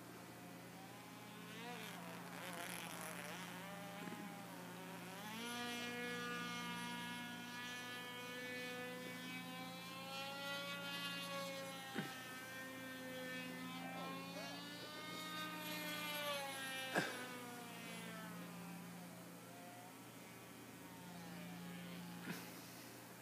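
The NV .074 glow engine of a Hacker Funny model plane flying overhead: a thin, high buzz whose pitch swoops up and down as the plane manoeuvres, strongest in the middle and fading near the end. A steady low hum lies under it, and three sharp clicks come at intervals.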